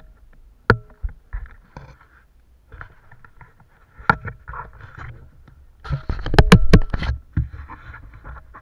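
Sea water lapping and sloshing against a plastic sit-on-top fishing kayak, with scattered sharp knocks on the hull and camera mount. A burst of loud knocks and rubbing comes about six to seven seconds in as the mounted camera is turned.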